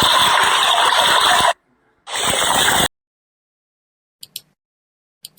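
Heavy rain pouring down, a steady loud hiss that cuts off suddenly about one and a half seconds in, comes back for under a second, then stops. A few faint clicks follow in near silence.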